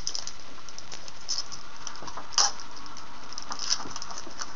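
Trading-card pack wrapper crinkling and cards being handled: scattered small crackles over a steady hiss, with one sharper crackle about halfway through.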